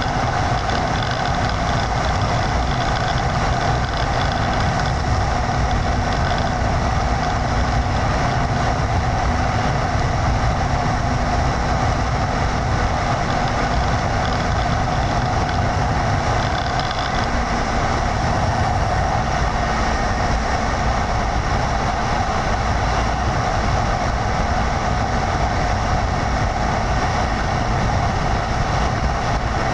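A vehicle driving at a steady speed: continuous engine and road noise with a low rumble, unchanging throughout.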